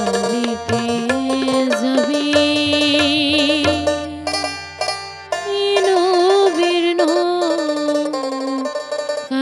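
Instrumental passage of a Bengali folk song, with a banjo carrying the melody over sustained harmonium chords and tabla.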